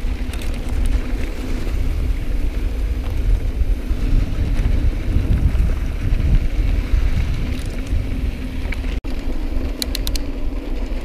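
Mountain bike rolling on a dirt trail, filmed by an action camera on the bike: steady low rumble of wind buffeting the microphone and tyres and frame on the dirt, with a few sharp ticks near the end.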